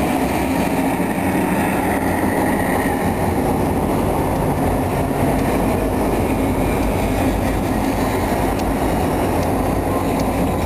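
A string of diesel-electric locomotives passing close by, their engines running over the steady rumble of wheels on the rails.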